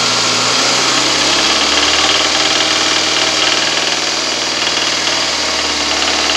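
Toyota Camry XV40 engine revved and held at raised speed, with a frequent knock that comes in on throttle. The knock comes from the area of the VVT-i cam phaser; the mechanics have not yet settled whether it is the phaser, a connecting rod or the intake manifold flap.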